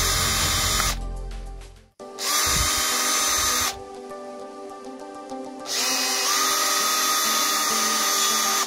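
Cordless Makita drill running in three bursts as a small bit drills out a model wagon's plastic coupling: it stops about a second in, runs again briefly from about two seconds in, and starts once more near the sixth second.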